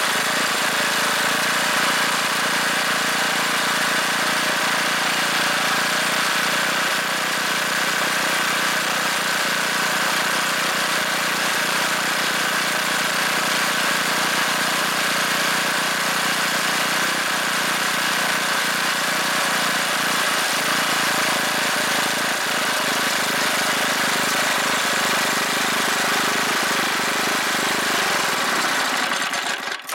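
Briggs & Stratton 3 hp single-cylinder four-stroke engine running steadily, then shut off and dying away just before the end.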